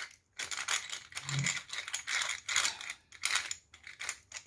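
Black pepper being dispensed over a bowl of ground meat: a quick, irregular run of short, dry, crunchy rattles.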